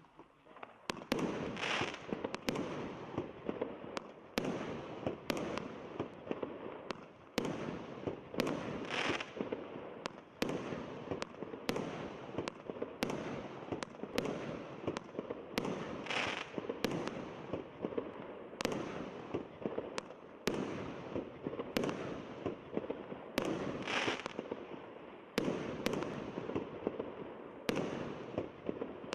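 Multi-shot firework battery (salute cake) 'Vlyublyonnye serdtsa' firing continuously: sharp launch bangs and bursts come about one to two a second over a constant crackle, and a short hissing burst is heard four times.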